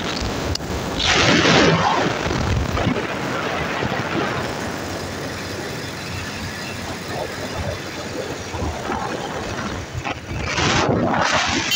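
Wind rushing over the microphone while riding a small motorcycle, with the bike's running mixed into the noise; the rush swells about a second in and again near the end.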